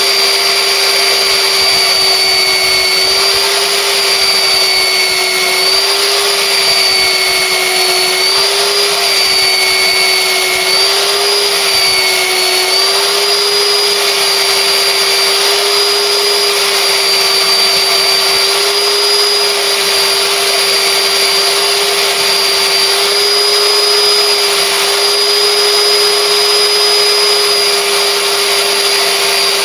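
Electric wire wheel spinning with a steady high whine while a spark plug is cleaned on it. The pitch dips slightly a few times as the plug is pressed against the wheel.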